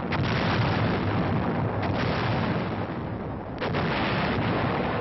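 Artillery firing on an old film soundtrack: three heavy blasts, just after the start, about two seconds in and about three and a half seconds in. Each blast runs on into a long rolling rumble.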